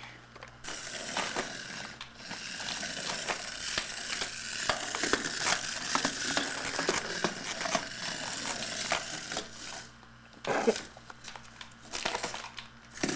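Crinkling and rustling, like paper or plastic being handled, with many small clicks and taps throughout; it eases off briefly about ten seconds in, then a sharper click follows.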